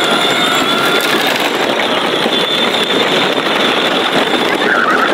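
Kids' battery-powered Case IH ride-on tractor driving, its electric gear motor whining steadily as its plastic wheels roll over concrete and then gravel.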